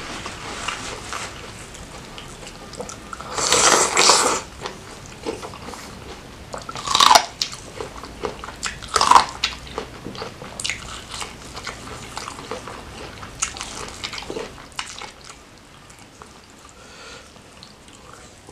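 Close-up eating sounds: biting into sauce-covered corn on the cob and chewing, with loud crunchy bites about 4, 7 and 9 seconds in and softer chewing after.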